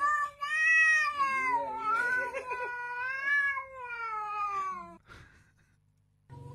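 A cat's long, drawn-out meowing, its pitch rising and falling in a wavering, almost word-like way, like a cat saying "bana ne". It stops about five seconds in.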